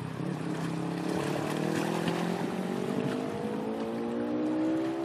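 A boat engine running, its pitch rising slowly and steadily, over water and wind noise.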